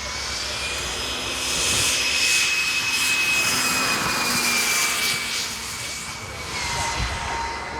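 Engines of a large radio-controlled model jet airliner whining as it flies past. The whine swells in the middle, then drops in pitch about two-thirds of the way through as the plane passes and moves away.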